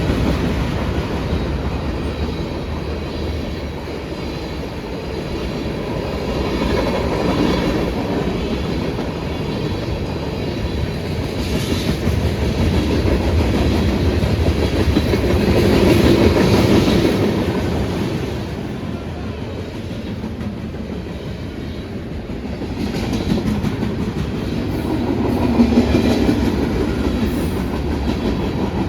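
Freight cars of a CSX manifest train rolling past, steel wheels on the rails making a continuous rumble that swells and eases as the cars go by.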